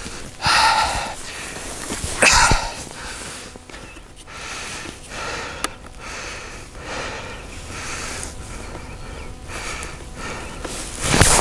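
A man breathing hard, with a noisy breath every second or two. One sharp click comes a little past halfway, as the trail camera on the tree is handled.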